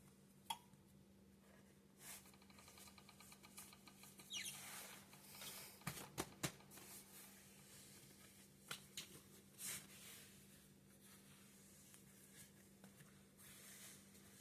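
Sourdough making faint, scattered small clicks, crackles and squeaks, with a cluster of sharp clicks around the middle and one quick falling squeak a few seconds in, over a faint steady hum.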